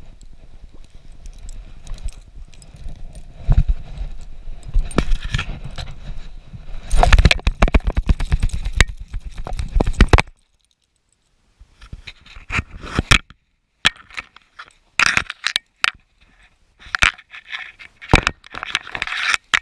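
Handling noise from a GoPro camera being moved about in a gloved hand: close scraping, rubbing and clicking on the housing, broken by a few short silent gaps after about ten seconds.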